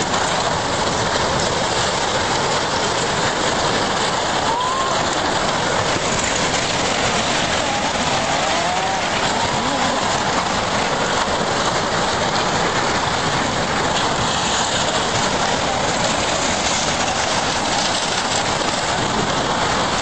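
Tsunami floodwater surging through a town with wrecked wooden houses and debris: a steady, loud roar of rushing water and grinding wreckage.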